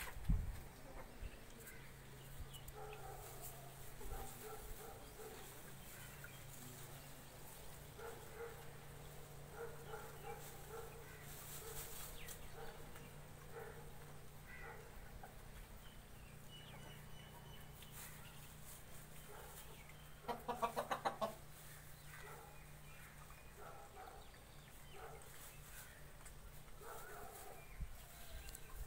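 Chickens clucking as they peck at scattered feed, short calls coming again and again, with one louder, rapidly pulsing burst of sound about twenty seconds in.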